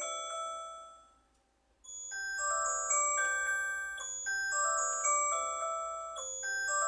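A soft, tinkling glockenspiel-like melody of ringing chime notes. It fades away within the first second and a half, pauses briefly, and starts again about two seconds in.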